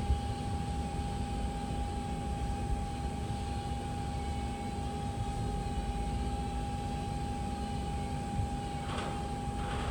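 SYIL V7 CNC vertical machining center's spindle running steadily at 2,000 RPM, a constant high whine over a low hum.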